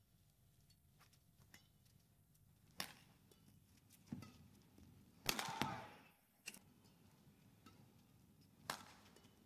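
Badminton rally: about six sharp smacks of racket strings on a shuttlecock at irregular intervals, the loudest a quick pair a little over five seconds in.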